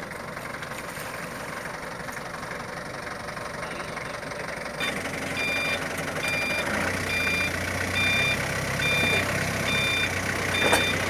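Forklift's backup alarm beeping, one short beep a little faster than once a second, starting about five seconds in, over the forklift's engine running, which grows louder as the beeping begins.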